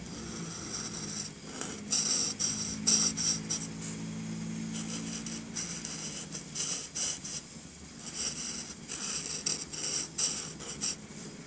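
Artline 70 permanent marker scratching across paper in quick short strokes as the zebra's stripes are filled in, in several bursts with brief pauses between them.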